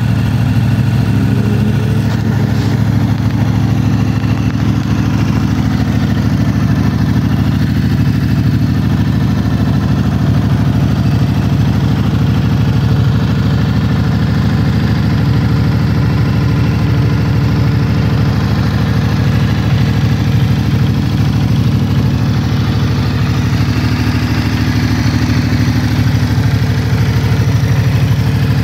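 Ducati Multistrada 1260 Enduro's 1262 cc Testastretta DVT V-twin engine idling steadily.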